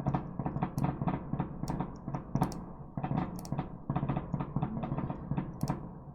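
Rapid, irregular clicks and knocks at a computer desk, several a second, over a steady low hum.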